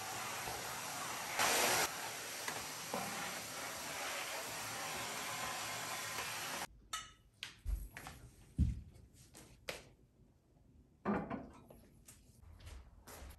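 Vacuum cleaner running with a steady rushing sound as its floor nozzle is pushed over a parquet floor, cutting off abruptly about seven seconds in. Scattered light knocks and a couple of dull thumps follow, as of objects being handled and set down.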